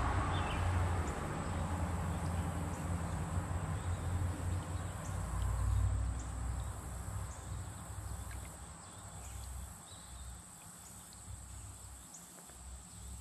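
Low, uneven rumble of wind on the microphone that dies down after about eight seconds, under a faint steady high tone and a few scattered faint ticks.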